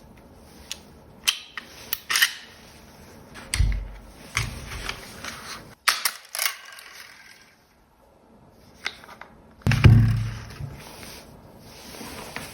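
Toy 92FS-style gel blaster being worked and fired: irregular sharp clicks and snaps, with two heavier thumps, one a few seconds in and one about ten seconds in.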